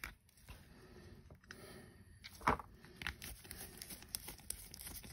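Nitrile-gloved hands handling a plastic dropper bottle of paint wash, a faint rustle and crinkle, with a sharp click about two and a half seconds in and a few lighter clicks after it.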